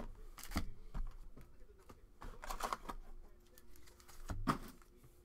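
Baseball card packs and their cardboard box being handled: scattered light clicks and taps with brief rustles of the foil pack wrappers.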